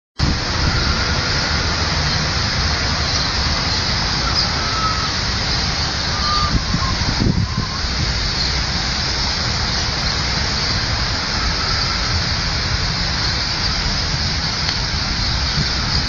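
Fountain jets spraying and the water splashing down into a lake: a steady, even hiss of falling water over a low, uneven rumble.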